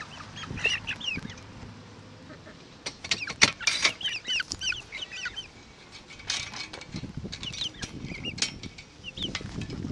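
Young Easter Egger and Black Copper Marans chicks peeping repeatedly in short high chirps inside their cage, with the wire cage door rattling in several sharp clicks, loudest about three to four seconds in.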